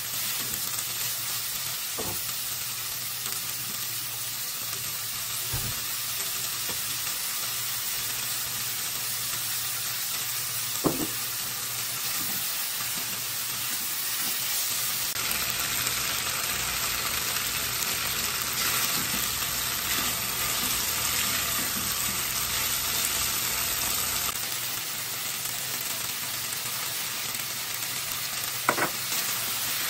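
Chicken and broccoli sizzling in a hot frying pan as a spatula stirs them, with a few sharp knocks of the spatula against the pan. The sizzle grows louder and hissier for a stretch in the middle.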